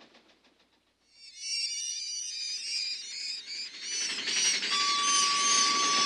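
A crowd of bats squeaking: dense high chirps that begin about a second in, as a train's clickety-clack fades out, and build in loudness. A steady high tone joins near the end.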